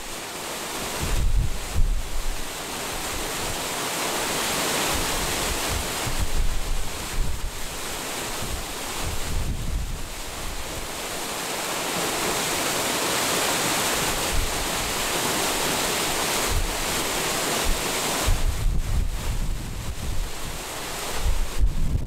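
Irrigation water spilling through the notches of a concrete diversion weir into the canal below, a steady rushing of falling water. Wind buffets the microphone in gusts, most in the first couple of seconds and over the last few.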